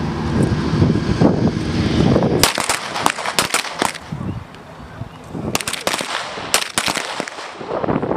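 M17 9 mm pistols firing on a range line: many sharp shots at an irregular pace, overlapping from several shooters, coming in clusters from about two and a half seconds in. A low rumble fills the first couple of seconds before the shots begin.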